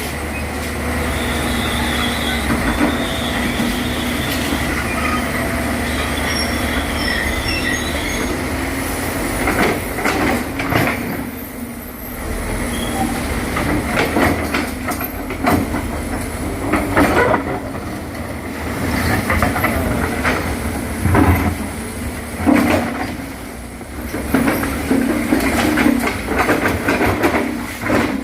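Tracked excavator working: its diesel engine runs steadily under metallic squeals and repeated clanks from the steel tracks and working gear.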